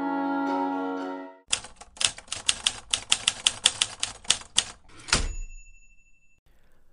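A held music chord ends about a second and a half in. A typewriter then types a quick run of keystrokes, about five a second, for close to four seconds, and finishes with a carriage-return bell ding that rings for a moment.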